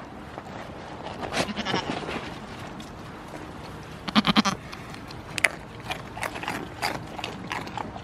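Goats bleating: a wavering bleat about a second in and a louder one about four seconds in, followed by a run of short clicks.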